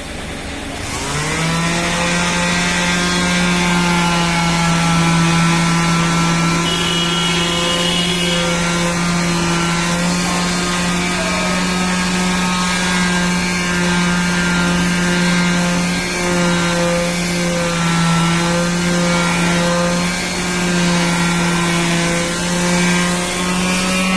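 Electric power sander spinning up about a second in, then running steadily with an abrasive hiss as it sands wood, and winding down at the end as it is switched off.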